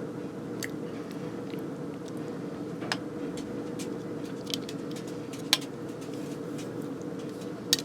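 Sausages being laid around the top of a tagine: a few scattered light clicks and soft knocks of handling, two sharper ones in the second half, over a steady low hum.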